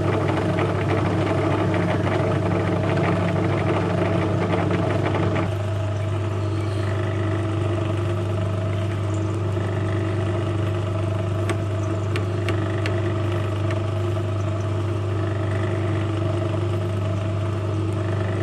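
Metal lathe running with a steady motor hum. A harsher cutting noise rides over it for the first five seconds or so, then the lathe runs on without the cut and stops abruptly at the end.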